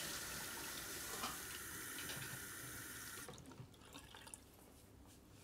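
Kitchen tap running into a sink for washing up, stopping abruptly about three seconds in, followed by a few faint clicks.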